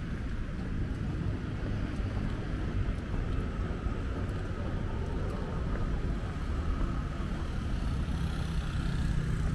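Steady city street noise: a continuous low rumble of passing traffic.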